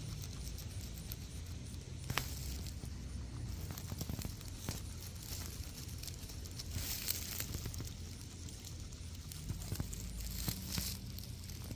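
Guinea pigs tearing and chewing grass: irregular crisp crunches, snaps and rustles over a steady low hum.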